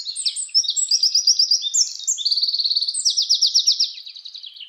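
Songbird singing fast, loud trills of rapidly repeated chirping notes, fading near the end.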